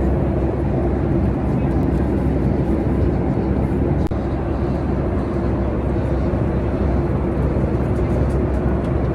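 Steady cabin noise inside a Boeing 737 MAX 8: engine and airflow drone with a low hum. There is a brief knock about four seconds in.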